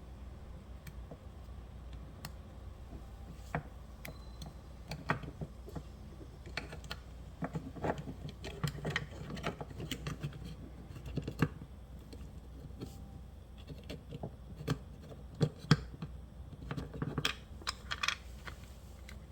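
Scattered light clicks and taps, denser in the middle and near the end, from small parts of a heating valve actuator being handled during disassembly, over a steady low hum.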